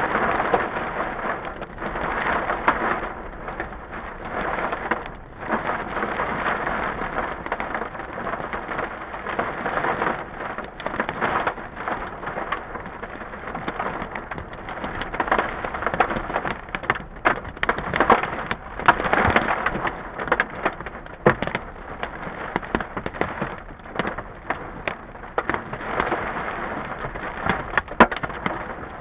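Hail and heavy rain pelting a stopped car's roof and windshield, heard from inside the car: a dense hiss of rain with many sharp hailstone strikes scattered throughout.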